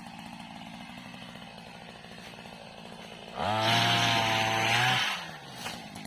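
Small engine of a motorized oil-palm pole pruner running at idle, then revved up about three and a half seconds in, held at high speed for about a second and a half, and let back down to idle.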